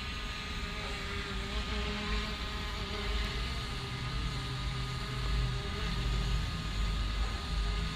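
Quadcopter drone's propellers buzzing steadily in flight, a thin whine over gusty wind rumble on the microphone.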